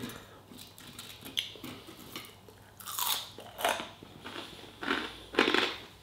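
A person biting and chewing a crunchy coated chicken piece, with irregular crunches and mouth sounds, the loudest about three seconds in and again about five seconds in.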